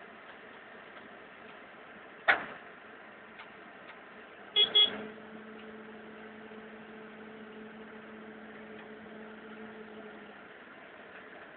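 TIG welder: a sharp click, then a brief loud buzzing burst as the arc is struck, followed by a steady low hum of the arc for about six seconds that stops before the end, over a constant hiss.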